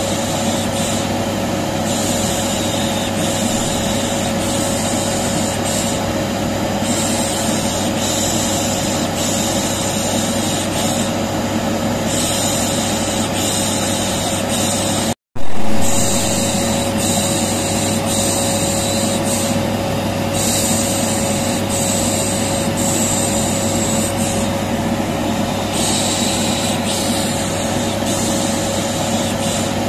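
Vacuum cleaner running steadily with a constant hum, overlaid with repeated 'shh' shushing that comes and goes every second or two. About halfway the sound cuts out for a moment and comes back with a sudden loud jump.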